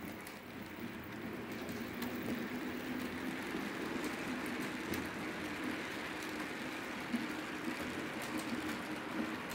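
H0-scale model freight train hauled by three ÖBB 1044 locomotive models rolling past: a steady rattle of small wheels on the rails over a low motor hum, with scattered clicks. It grows a little louder about two seconds in as the wagons pass close by.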